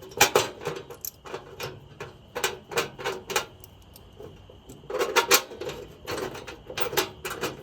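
Irregular sharp metallic clicks and clatter from hand tools and bolts as a steel toolbox is being fastened on, some clicks in quick clusters.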